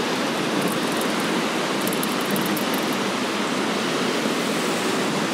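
Steady rushing of water pouring down an artificial canal waterfall.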